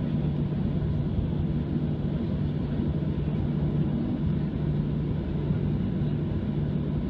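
Steady engine rumble of a Boeing 737-700's CFM56-7B turbofans, heard from inside the passenger cabin, with a low, even hum underneath.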